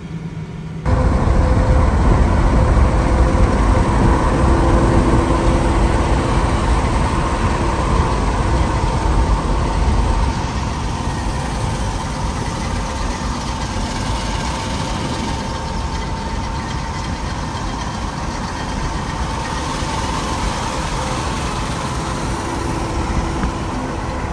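Road and wind noise of trucks driving at highway speed. A heavy wind rumble on the microphone lasts for about the first ten seconds, then gives way to a steadier roar of tyres and engines with a faint steady whine.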